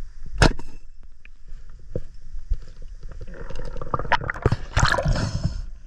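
Underwater noise from a diver moving with a speargun, heard through a camera housing: a sharp click about half a second in, a few scattered knocks, then a dense stretch of bubbling and rushing water from about three seconds in.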